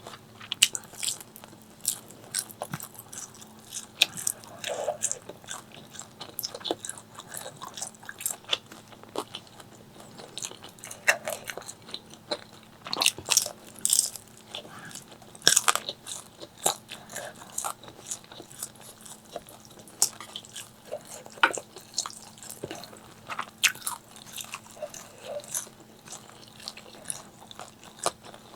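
Close-miked eating: crisp fried chicken being bitten and chewed, with irregular sharp crunches and crackles between softer chewing.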